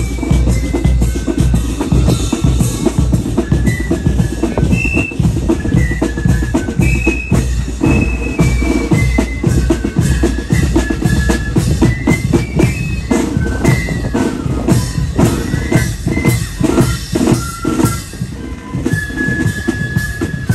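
Marching band playing a tune on flutes over rapid snare drumming and a bass drum beat. The drumming is the loudest part, and the flute notes become longer and held near the end.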